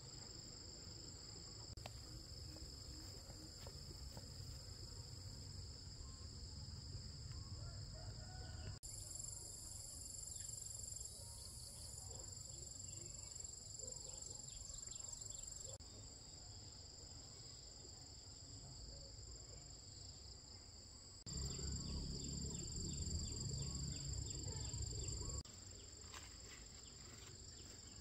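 Steady high-pitched trilling of an insect chorus over a low rumble. The rumble grows louder for a few seconds near the end, and the mix changes abruptly several times.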